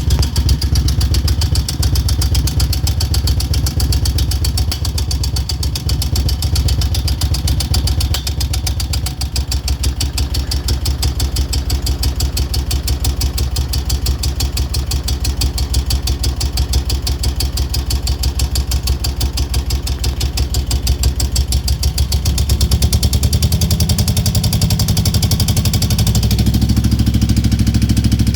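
Moto Guzzi California EV's air-cooled V-twin idling with a fast, even ticking laid over the engine note; the revs rise a little about two-thirds of the way through and again near the end. The ticking is the noise the owner is trying to trace.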